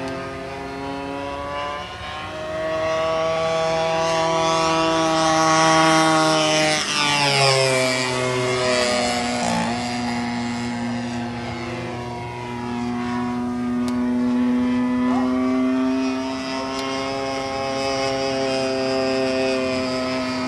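Evo 35 engine of a Hangar 9 P-47 model airplane running in flight. It is loudest as it passes about six to seven seconds in, where its pitch drops, then it drones on at a steady pitch.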